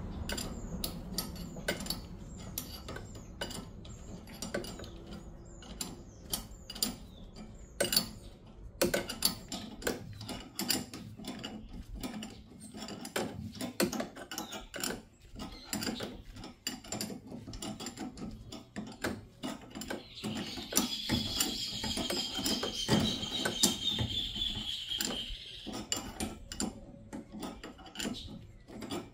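Ratchet wrench clicking in runs of quick strokes as bolts are worked on a car's rear suspension, with scattered metallic clinks of tools. About two-thirds of the way through, a high wavering tone sounds for several seconds.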